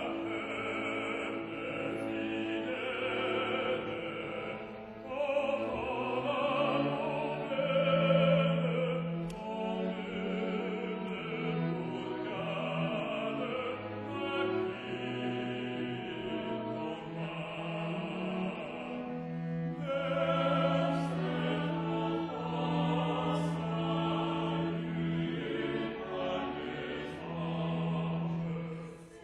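A mixed choir singing a Christmas carol with a string orchestra accompanying, sustained sung chords over held low string notes.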